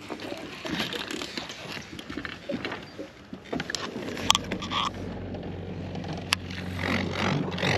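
Clicks and rustles of a baitcasting rod and reel being handled, with a sleeve brushing past, then a cast. From about halfway, a steady low hum from the bass boat's motor sets in, with a sharp click about two seconds later.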